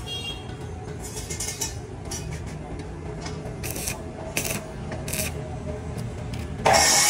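Metalwork on a steel door frame: a steady low noise with scattered short metallic scrapes and clicks. Near the end, a much louder harsh noise cuts in suddenly.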